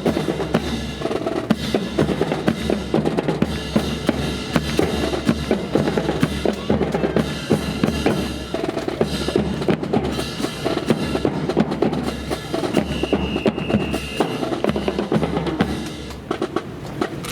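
Drum cadence of rapid snare-drum strikes and rolls over a steady bass-drum beat. Partway through, a brief high steady tone sounds for about a second and a half.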